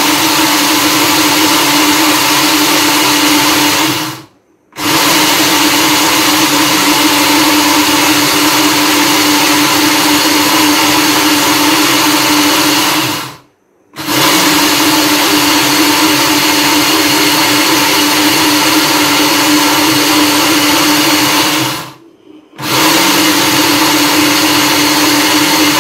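Electric Black+Decker blender motor running a grinder jar of dry rice, with a steady whine over the grinding rush. It is run in four long bursts with three short stops, chopping the rice into coarse granules rather than powder.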